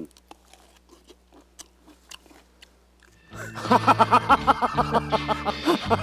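Faint wet mouth sounds of someone biting and chewing a soft, ripe persimmon. About three seconds in, louder background music comes in with quick, evenly spaced notes, about five a second.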